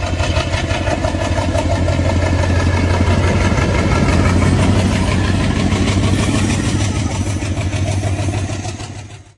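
WDP4D diesel locomotive passing at speed, its EMD two-stroke V16 engine giving a loud, steady low drone, with the coaches rolling by behind it. The sound fades near the end and then cuts off abruptly.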